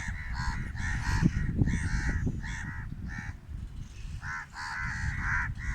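Birds calling over and over: short harsh calls in quick runs, with a pause in the middle.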